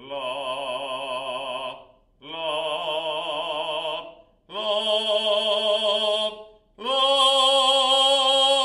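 A man singing four held 'la' notes with vibrato, each a step higher than the last, with short breaks between them. The voice is picked up by a stereo pair of Behringer B-5 condenser microphones about three metres away.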